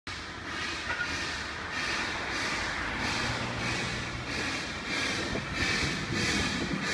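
Puffing Billy's narrow-gauge NA-class steam tank locomotive chuffing steadily as it approaches, about two exhaust beats a second over the rumble of the train.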